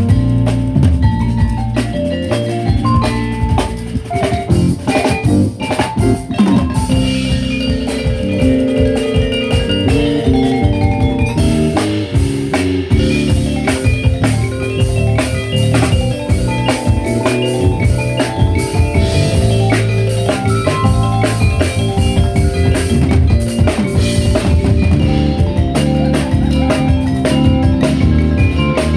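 Live ethnic fusion band playing: drum kit and percussion drive a dense beat under bass and melodic pitched parts.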